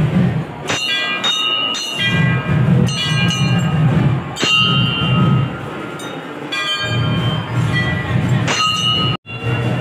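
Hanging brass temple bells rung by hand, clanging several times with each strike ringing on and fading, over a steady low background rumble.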